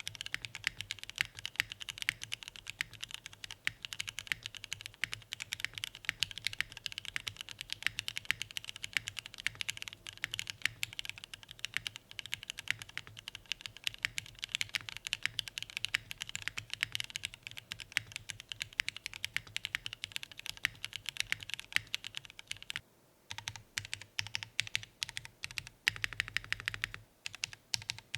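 Fast, continuous typing on a TKD Pt1/75 mechanical keyboard with lubed, filmed and spring-swapped Cherry MX Black linear switches, Keykobo Violet Alert keycaps and a top-mounted polycarbonate plate with no foam. Near the end the typing pauses briefly, then resumes as slower, separate bursts of keystrokes.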